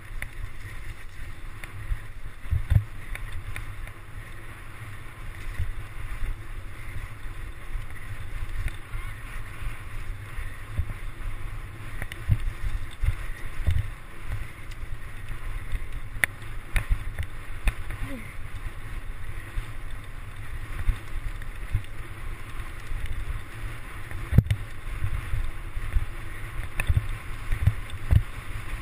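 Mountain bike ridden fast over a rough dirt and grass trail: a continuous rumble of tyres and wind on the bike-mounted camera's microphone, broken by frequent knocks and rattles as the bike hits bumps.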